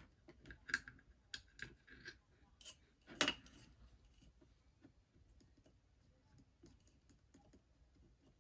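Light clicks and taps from handling a soldering iron and multimeter test leads on a workbench, the loudest a little after three seconds in, then only faint ticks.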